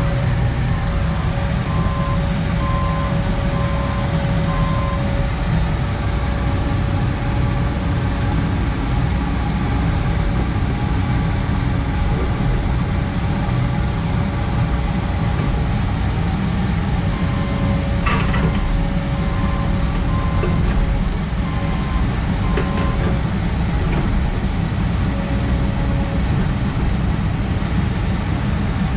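Heavy diesel engine running steadily with a continuous low rumble and a steady whine that drops in and out. There is a sharp click about two-thirds of the way through and a fainter one a few seconds later.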